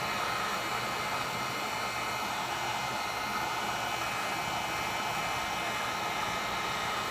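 A handheld heat gun blowing hot air with a steady whooshing whine, warming a phone's front glass to soften the adhesive so the glass can be pried off.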